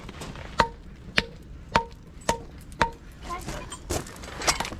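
Hammer blows on concrete in an even rhythm, about two a second, each with a short ringing tone, then fainter knocks near the end. The concrete is being knocked off along grinder-cut lines, scored so it breaks away more easily.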